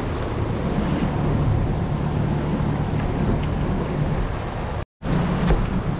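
Boat motor running steadily, a low hum under heavy wind noise on the microphone. The sound cuts out completely for a split second about five seconds in, then resumes.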